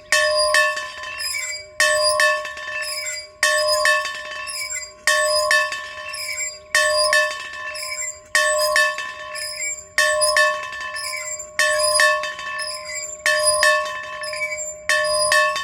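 A single bell being rung over and over in a steady rhythm. About every second and a half comes a strike of several quick clapper hits, and the same ringing tone carries on between strikes.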